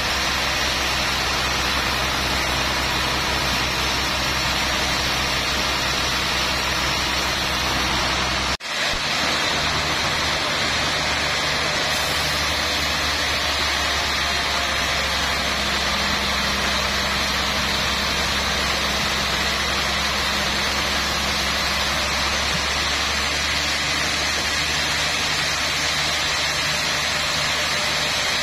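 Band sawmill running and sawing through a large trembesi (rain tree) log: a steady machine hum under a loud, even hiss from the blade. The sound breaks off for an instant about eight and a half seconds in, then carries on.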